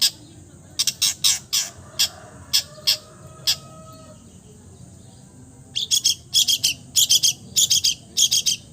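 Long-tailed shrike (cendet) singing in harsh, scratchy short notes: scattered calls in the first half, then a pause, then a fast chattering run of notes near the end.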